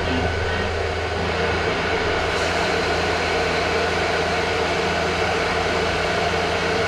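Steady mechanical drone of running machinery, with a constant low hum and a few held tones over an even rushing noise.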